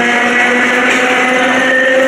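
Electric multiple unit ER 4407 accelerating away from a station, its traction motors growling with several tones rising slowly in pitch as the train gathers speed.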